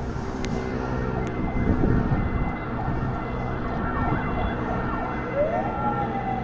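A siren-like wailing tone that rises quickly about five seconds in and then slowly falls, over a steady mechanical hum.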